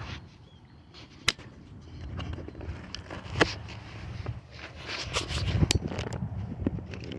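Handling noise from a phone camera being picked up and repositioned: rustling and scraping against the microphone, with sharp clicks about a second in, near three and a half seconds and near six seconds.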